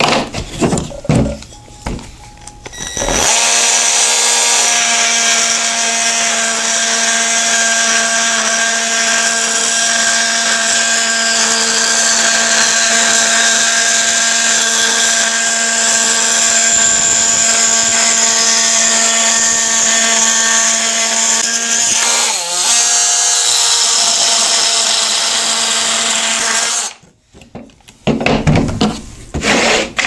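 Ryobi cordless oscillating multi-tool with a multi-material blade cutting into a small block of wood, running at a steady pitch with a high rasp. It starts about three seconds in, after a few light handling knocks, falters briefly near the end, then stops a few seconds before the close.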